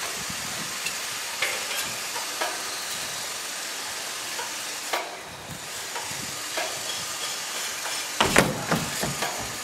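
Skateboard and skater dropping off a wall onto a plywood mini ramp: a cluster of loud wooden thuds and clatter near the end, over a steady hiss, with a few faint knocks earlier.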